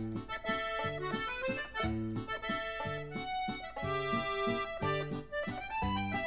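Background music: a solo accordion tune over a steady, even beat of bass notes and chords.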